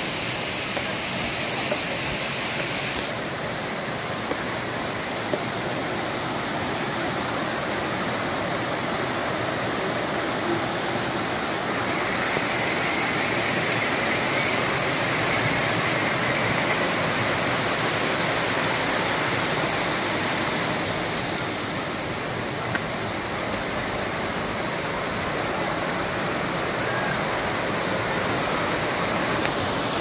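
Water rushing and splashing down between boulders in a small rocky waterfall: a steady, even rush whose tone shifts a few times.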